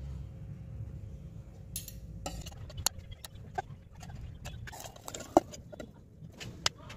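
Metal spoon clinking and scraping against a steel bowl while stirring and scooping chocolate sauce: irregular light taps, with one sharp clink a little past the middle, over a low steady background rumble.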